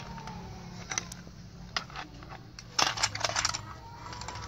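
Small plastic toy cars clicking and clattering against each other as they are pushed by hand and tipped over, with a quick run of louder clicks about three seconds in.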